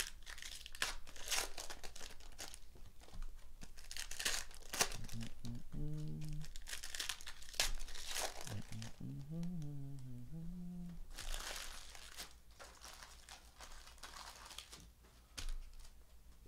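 Foil wrapper of a Donruss Optic trading-card pack being torn open and crinkled by hand, a dense run of crackling and tearing that thins out over the last few seconds.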